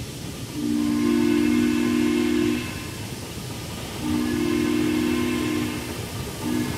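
Chime whistle of a miniature live-steam locomotive, several notes sounding together, blown twice long and then once short: the opening of the long-long-short-long grade-crossing signal. A steady rumble of the train running on the track fills the gaps between blasts.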